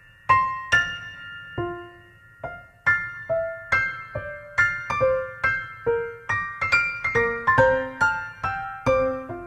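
Background music on solo piano: single struck notes that ring and fade, sparse for the first few seconds, then a steady flowing run of notes from about three seconds in.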